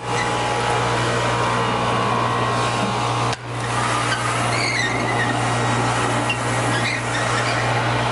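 Industrial vacuum running steadily, a loud hum with rushing air as its floor tool sucks spilled Portland cement dust off a concrete floor. The sound dips briefly a little over three seconds in.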